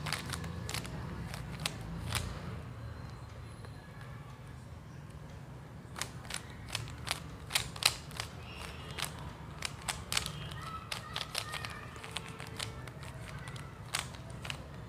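Plastic Rubik's Cube being turned by hand: irregular clicks and clacks of its layers snapping round. The turns come in quicker runs during the second half.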